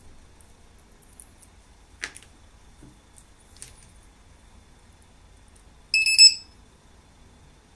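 A LiPo battery voltage checker's buzzer gives a brief burst of high-pitched electronic beeping about six seconds in as it is connected to the battery. Before that come a few light clicks of wires and connectors being handled.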